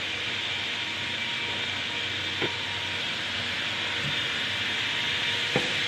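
Briquette production machinery running: a steady hiss over a low hum, with two short knocks, one about two and a half seconds in and one near the end.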